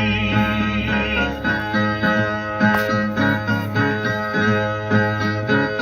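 Instrumental interlude between improvised sung stanzas of a Northeastern Brazilian repente: a steady rhythmic accompaniment pattern over sustained tones, with no singing.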